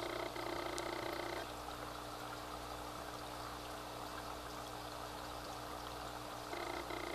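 Water bubbling and trickling from an air-driven aquarium sponge filter. A steady hum over it drops out about a second and a half in and comes back near the end.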